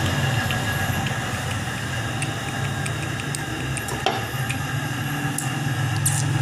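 A steady low hum, with light clicks of small metal parts being handled inside an open diesel injection pump housing, and a sharper click about four seconds in.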